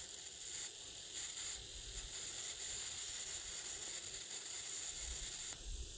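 Dual-arc plasma lighter running with a steady electric hiss, then cutting out on its 10-second automatic timeout near the end.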